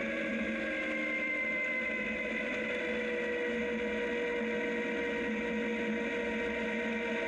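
Zero DSR electric motorcycle's motor and drivetrain whining while riding on a gravel road. Several tones glide slowly down in pitch as the bike eases off, over a steady rush of tyre and wind noise.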